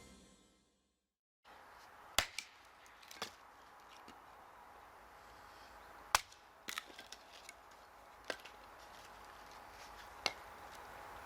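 Hatchet chopping kindling wood: sharp, single chops at irregular intervals, about half a dozen, a few seconds apart.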